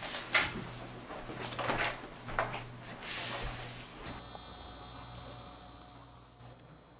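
A paper envelope being opened and its contents slid out: several short paper rustles, the longest about three seconds in, then only a faint hum.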